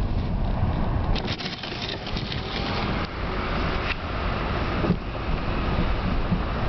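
Car in motion: steady road rumble and wind noise, with a few brief clicks and knocks about a second in.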